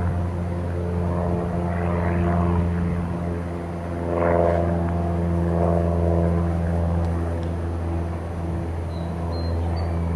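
A steady engine drone with a constant low hum, swelling slightly a couple of times. Short high chirps, like birds, come in near the end.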